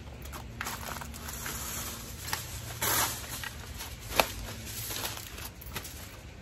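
Aluminium foil crinkling and rustling as it is handled, in irregular crackles. There is a louder rustle about three seconds in and a sharp click just after four seconds.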